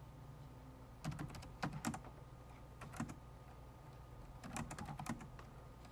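Computer keyboard keys being typed in short bursts: a few keystrokes about a second in, one near three seconds, and a quick run of keystrokes around four and a half to five seconds in, over a faint steady hum.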